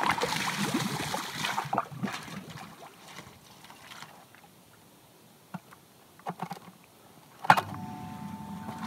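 Water splashing and churning around a submersible pump in a plastic rainwater barrel, fading away after about two seconds. Near the end a sharp click, and the pump's electric motor starts running with a steady hum.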